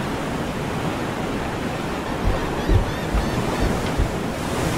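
Storm-at-sea sound effect: a steady rush of waves and wind, with a few low thumps in the second half.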